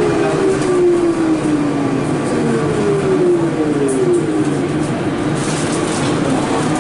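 Siemens VAL 208 driverless metro train heard from inside the car: a whine from the electric drive slides down in pitch twice over the first few seconds as the train slows at the platform, over a steady hum and hiss of the car.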